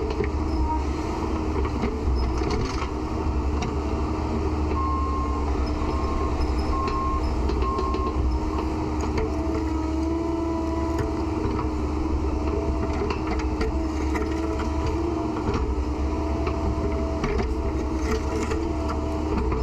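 Heavy equipment engine running steadily, with a wavering mechanical whine over it. Four short beeps about a second apart, like a warning alarm, come around a third of the way in.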